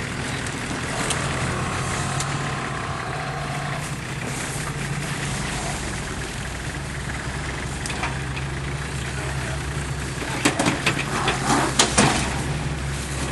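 Four-wheel-drive competition vehicle's engine running at a low, steady pitch, with a cluster of sharp knocks and clatters about ten and a half to twelve seconds in.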